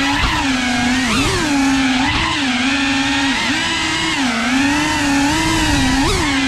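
Cinewhoop FPV quadcopter's motors and ducted propellers whining steadily, the pitch swooping up briefly with quick throttle bursts several times.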